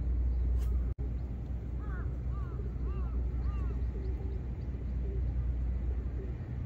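Steady low rumble of wind on the microphone at the waterfront, with a bird calling about five times in quick succession between two and four seconds in, each a short arching chirp.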